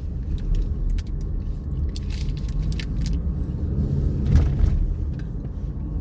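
Steady low vehicle rumble with scattered light clicks, and a brief louder bump about four and a half seconds in.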